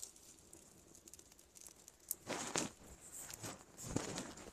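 Dry sticks rustling and crackling in a wood fire under a cooking pot on a clay stove, a few short crackles and rustles starting about two seconds in.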